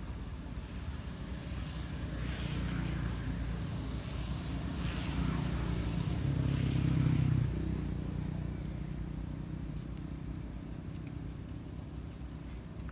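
Low rumble of a motor vehicle's engine, building to a peak about seven seconds in and then dropping off sharply.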